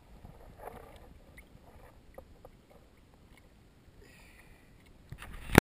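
Faint splashing of lake water around a kayak, with a few small clicks, and one sudden loud knock near the end.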